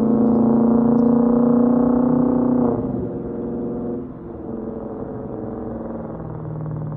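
Dodge Charger Daytona's Hemi V8 running through dual Jones Turbine JR20 mufflers, pulling under throttle with its exhaust note slowly rising, then the throttle is lifted nearly three seconds in and the exhaust drops to a quieter, lower note.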